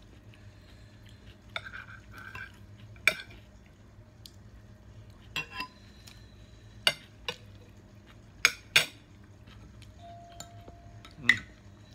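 Metal forks and spoons clinking and scraping against plates and bowls while eating: irregular sharp clinks, the loudest a little before the end.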